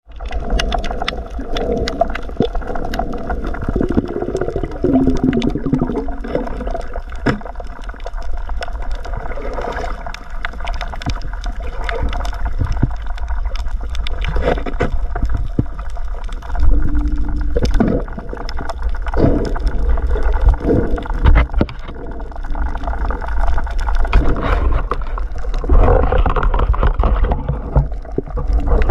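Underwater sound picked up by a camera in its waterproof housing on a night dive over a coral reef: a steady low rumble of moving water with scattered sharp clicks and a few louder knocks, the loudest about two-thirds of the way through.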